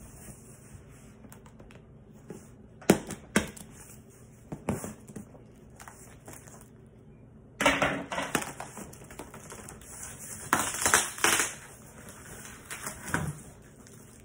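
Hands handling a cardboard shipping box wrapped in plastic film and packing tape. A few sharp knocks on the cardboard come first, then two longer bouts of crinkling and tearing as the wrap and tape are pulled and a box flap is worked open.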